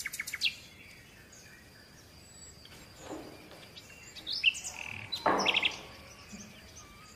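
Faint scattered bird chirps, a few short high calls, with a brief hiss a little over five seconds in.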